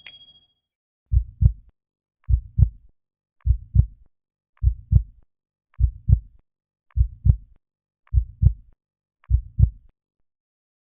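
Heartbeat sound effect: eight slow, evenly spaced double thumps (lub-dub), a little under one beat per second.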